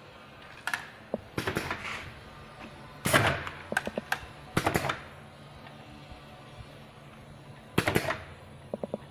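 Tablet and capsule packaging machine running: a steady low hum with irregular sharp mechanical clacks and rattles, in clusters a second or two apart. The loudest cluster comes about three seconds in.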